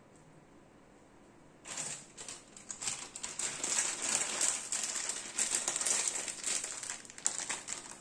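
Plastic cheese packet crinkling as it is handled, starting about two seconds in and stopping just before the end.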